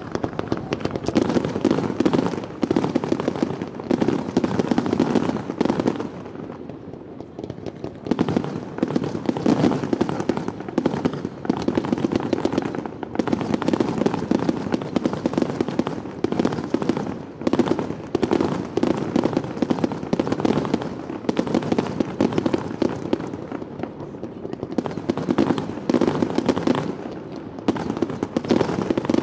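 Fireworks display: a dense barrage of bursting shells and crackle in quick succession, easing briefly twice before picking up again.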